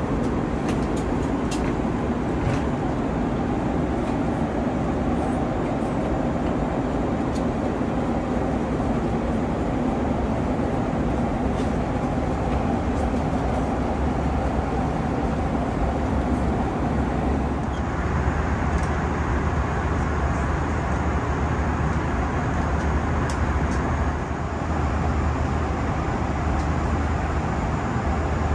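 Steady rush of airflow and engine noise inside an Airbus A340's passenger cabin in flight, with a few light clicks in the first seconds. The tone of the noise shifts slightly about two-thirds of the way through.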